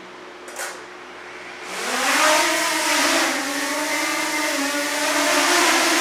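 A short click, then about two seconds in the DJI Mini 2's motors start and its propellers spin up in a loud rising whine as it lifts off. The whine then holds steady with a slight wavering pitch as the drone hovers.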